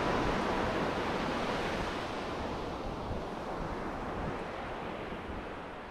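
Surf washing up a sandy beach: a steady rush of small breaking waves that slowly fades out.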